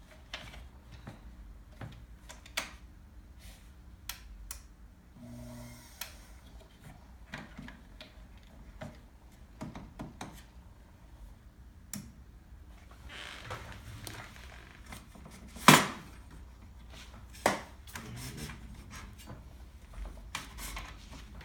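Scattered small clicks and taps of hand work at a bench, as a plastic epoxy mixing cup and a small brush are handled. There is a sharper, louder click a little before 16 seconds in and a smaller one about two seconds later.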